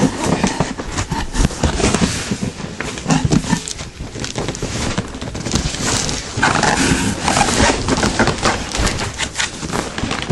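Cardboard box and packing material being handled, with continuous scraping, rustling and knocking as an item is pulled out of its packaging.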